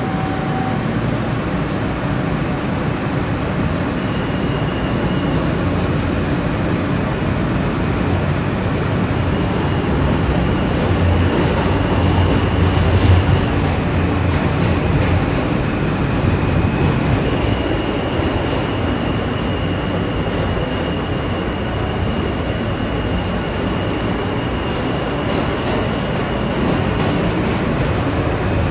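New York City subway car running through the tunnel, heard from inside the car: a steady rumble of wheels on rail, with a thin high whine that comes and goes.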